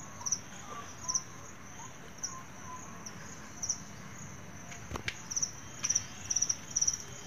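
A cricket chirping: short, high, pulsed chirps that come closer together in the last couple of seconds. A single sharp click sounds about five seconds in.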